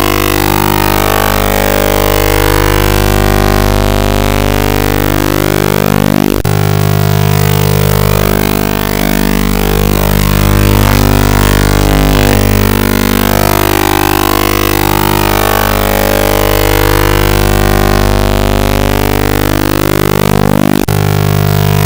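Loud, dense droning music with steady low tones. Sweeping pitch glides swoop into a sharp break about six seconds in and again near the end.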